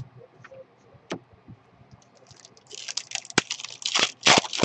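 Trading cards and their packaging being handled: a few light clicks, then from about two and a half seconds in a dense run of crisp rustling and crinkling with sharp snaps.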